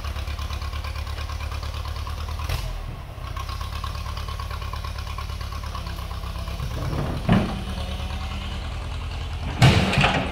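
Old backhoe-loader tractor's engine running with a steady low, rhythmic throb as the tractor drives down off a lowboy trailer. Two loud thumps stand out, one about seven seconds in and a louder one just before the end.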